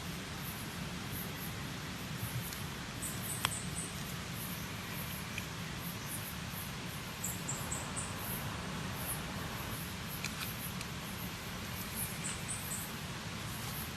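Steady background hiss with faint, high-pitched chirps in short runs of three or four, repeating a few times, and one sharp click about three and a half seconds in.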